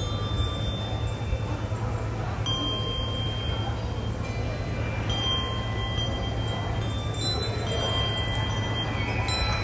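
Handbell choir ringing a slow carol: single bell notes strike and ring on, a new one every couple of seconds, over a steady low hum.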